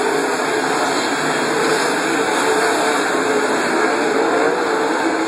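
A pack of World of Outlaws sprint cars, 410 cubic-inch V8s, racing on a dirt oval: a continuous loud engine drone whose pitch rises and falls in waves as the cars lap the track.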